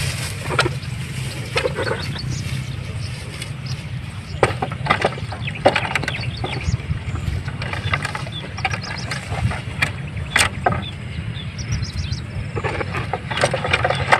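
Scattered knocks, clacks and rustles of a hand plough being dragged through dry rice stubble and lifted onto a bamboo cart, over a steady low rumble. Birds chirp a few times, about nine seconds in and again near the end.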